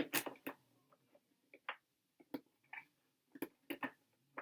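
Irregular small clicks and light knocks of hard plastic being handled as a part of a Casio CTK-2300 keyboard is fitted back in place.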